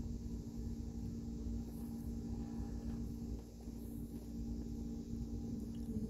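A steady low hum with a faint low rumble under it.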